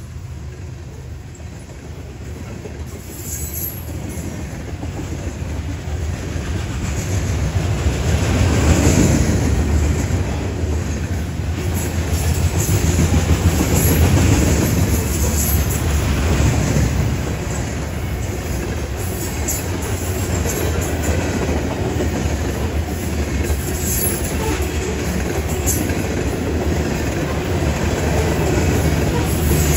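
Covered hopper cars of a CSX freight train rolling past, their steel wheels rumbling and clattering on the rails, with brief high squeals now and then.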